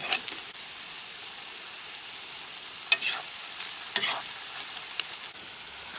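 Onions sizzling as they fry in oil in a large kadhai, with a steady hiss. A spatula scrapes and knocks against the pan a few times, about three, four and five seconds in.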